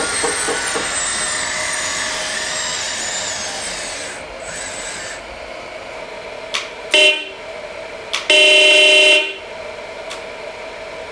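The RC hydraulic excavator's pump whines at a high pitch and dies away about four seconds in. Then the model's sound module sounds a horn twice: a short toot, then a longer one about a second later.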